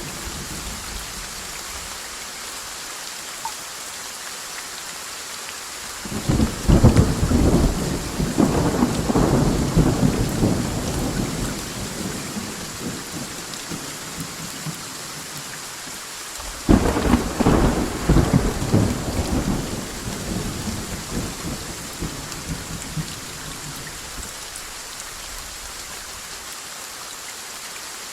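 Steady rain with two rolls of thunder. The first begins about six seconds in and rumbles on for several seconds; the second breaks sharply about seventeen seconds in and fades over a few seconds.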